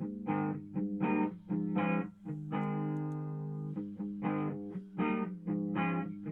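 Electric guitar played through a handmade effects pedal for a tone test: a run of short, choppy chord stabs broken by a couple of longer ringing chords.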